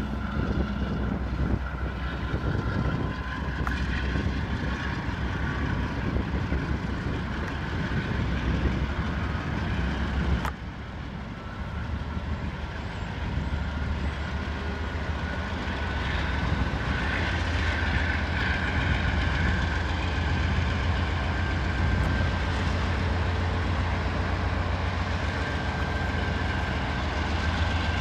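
Union Pacific diesel-electric freight locomotive running as it rolls slowly past, its low engine drone growing louder from about halfway through, with a thin steady whine above it.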